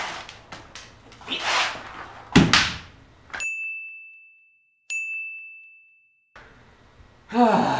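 A Ford Escort ZX2 manual transmission case being set down and shifted on cardboard over concrete: several clunks and scrapes, the loudest thump about two and a half seconds in. Then the room sound cuts out and two added chime-like dings sound about a second and a half apart over silence.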